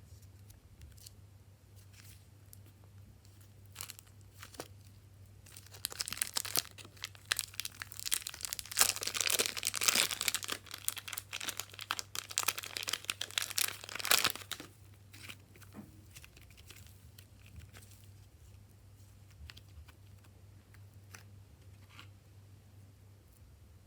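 Dense crinkling, crackling handling noise, starting about five seconds in and lasting about nine seconds, with scattered faint clicks before and after. A steady low hum runs underneath.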